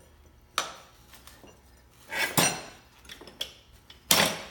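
Steel tire irons clanking against a motorcycle wheel rim and against each other as a tire bead is levered on. There are about four separate metallic knocks, the loudest near the end.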